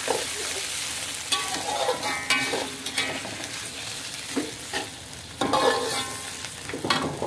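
Salted mustard greens sizzling in a hot metal wok while a metal spatula stirs them, scraping and knocking against the pan in irregular strokes, some with a brief metallic ring.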